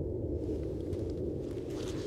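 Footsteps of people walking over rough grass, with soft rustles and scuffs that build towards the end, over a steady low rumble.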